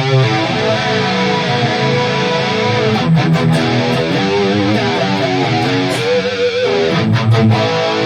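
Electric guitar strumming chords through the Valeton GP200 modeling unit with its chorus effect switched on.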